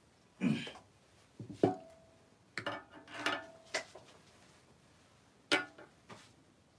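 Handling noise close to the microphone: a series of knocks and clicks as things on a table are picked up and moved, a couple of them ringing briefly, with one sharp click about five and a half seconds in.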